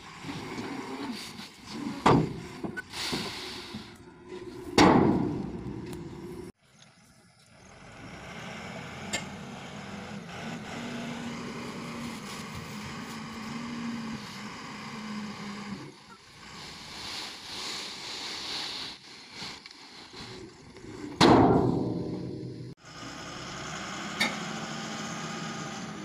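Tipper truck engines running while the trucks unload stone dust, with three loud bangs, and the sound breaks off abruptly a few times.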